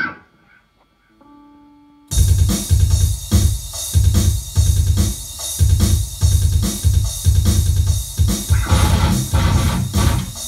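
Electric guitar through an amplifier: a single picked chord at the start and a faint held note, then about two seconds in a loud, distorted riff of rhythmic low chugs.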